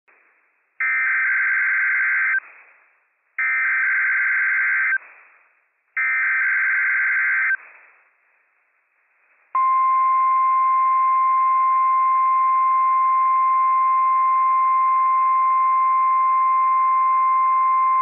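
NOAA Weather Radio Required Weekly Test signal heard over a weather radio. First come three short bursts of SAME digital header data, each about a second and a half long with a brief gap between them. Then, about halfway through, the steady 1050 Hz warning alarm tone starts and holds as a single unbroken high beep.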